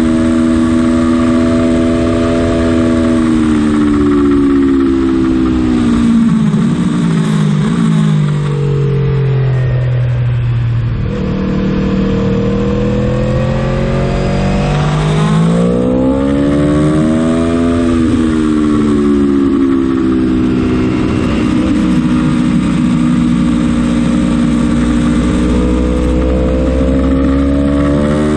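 Aprilia Tuono motorcycle engine at track pace, over steady wind and road rush. The engine note falls for several seconds as the bike slows, then climbs again under throttle. It dips and recovers once more midway and is rising again near the end.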